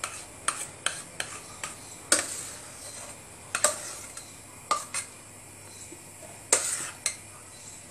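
A utensil scraping thick pastry cream out of a metal saucepan into a dish, with about a dozen irregular clinks and scrapes against the pot; the sharpest come about two seconds in and near the end.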